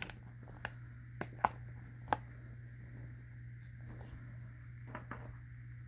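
Small clicks and taps from handling the parts of an Israeli 4A1 gas mask as its eyepieces and plastic pieces are fitted. The clicks are scattered, the sharpest about a second and a half in, over a steady low hum.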